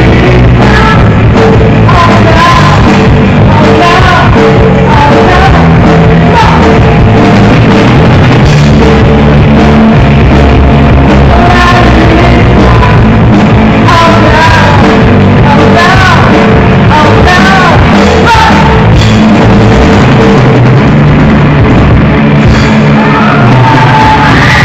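Rock band playing a song at full volume, with a lead singer's vocal line over the band throughout.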